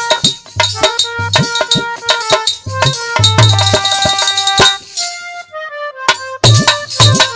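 Instrumental interlude of Indian folk music: a melody line over a steady beat of hand drums and percussion. About five seconds in, the melody falls in a run of notes and the drums stop briefly. The beat comes back in just after six seconds.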